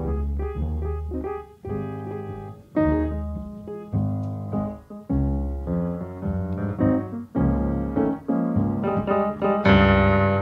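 Solo jazz piano playing a blues: right-hand chords and runs over a strong bass line in the left hand, with a loud full chord near the end.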